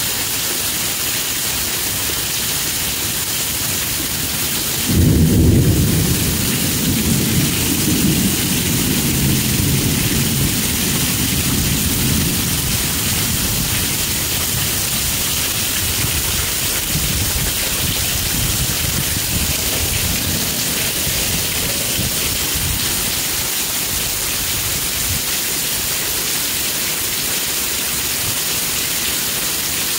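Heavy thunderstorm rain falling steadily. About five seconds in, a sudden loud low thunderclap breaks in and rumbles away over the next several seconds.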